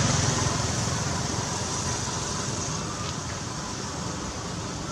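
A passing vehicle's low rumble fading away over steady outdoor background noise, with a couple of faint high chirps.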